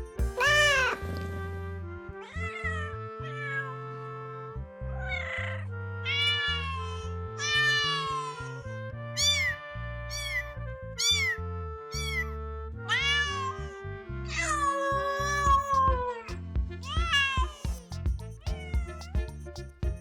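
Kittens meowing again and again in short, high calls that rise and fall, with one longer drawn-out meow about three-quarters of the way through. Background music with a steady bass plays underneath.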